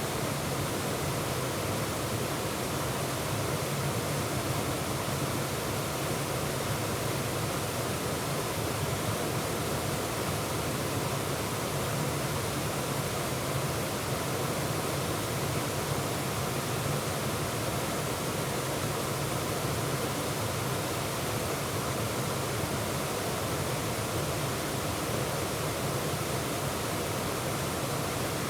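Waterfall: water pouring and splashing over the falls in a steady, unbroken rush.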